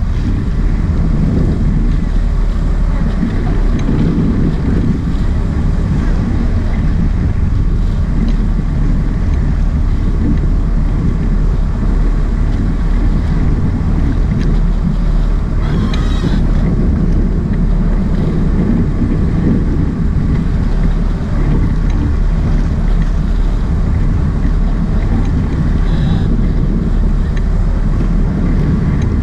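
Steady low rumble of a sport-fishing boat's engines under way, with wind buffeting the microphone and water washing by. A single brief knock comes about halfway through.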